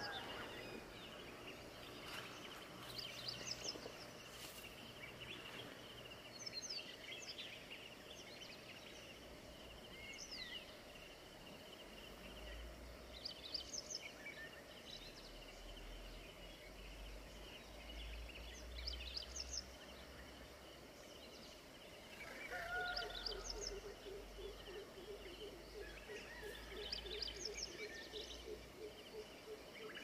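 Several wild birds calling at dawn: short, clear whistled notes that sweep up or down come every few seconds over a steady high drone. From about 22 seconds in, a fast, low pulsed call of about five notes a second joins and keeps going.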